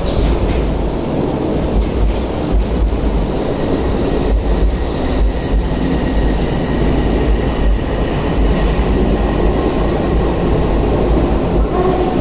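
Odakyu electric commuter train running along an underground station platform: a steady rumble of wheels and running gear, with a faint whine rising near the end.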